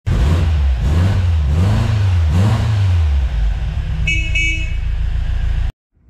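Car engine revving up and down several times, then two short horn toots in quick succession; the sound cuts off suddenly near the end.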